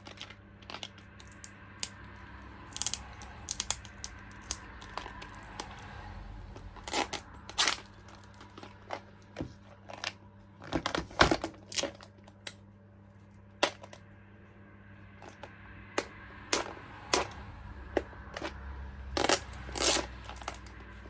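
Metal fishing weight sinkers of different sizes clicking and clinking against each other as they are handled, in irregular sharp clicks with a denser run about eleven seconds in.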